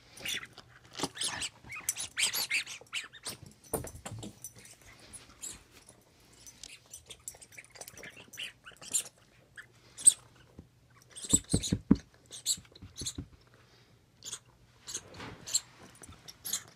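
Small dog playing with a plush toy: irregular chewing, scratching and rustling sounds, with a cluster of knocks about eleven seconds in.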